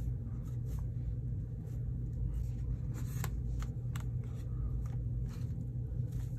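Soft taps and paper rustles from foam sponge stamps being pressed by hand onto an art journal page, with a few sharper clicks about three to four seconds in, over a steady low hum.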